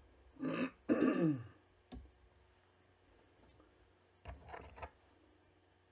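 A man clearing his throat, loudest about a second in, with a shorter, softer throat sound just past four seconds. Two sharp clicks fall near the start and about two seconds in.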